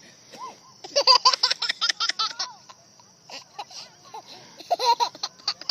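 Baby boy laughing in fits of short, rapid giggles: one long run about a second in and a shorter one near the end.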